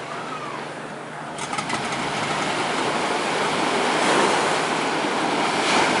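Small waves washing up onto a sandy beach and draining back. The wash swells about a second and a half in and peaks around the middle and again near the end, over a faint steady low hum.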